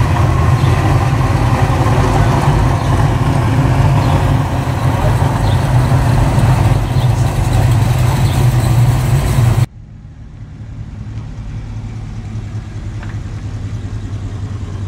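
Classic Dodge car engines running loud and low as the cars roll slowly past at walking pace. About ten seconds in the sound cuts off suddenly to a much quieter engine note of another car creeping by, which slowly grows louder.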